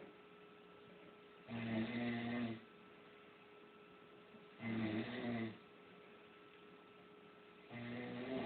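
Snoring in sleep: three snores about three seconds apart, each lasting about a second, the last running on past the end. A faint steady hum lies underneath.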